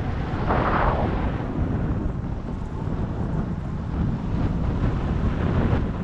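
Wind buffeting the camera microphone in a paraglider's forward flight: a steady, loud, low rumble, with a brief higher rush of air about half a second in.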